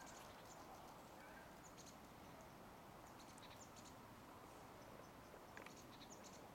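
Near silence: faint outdoor hiss with scattered faint, short high-pitched clicks.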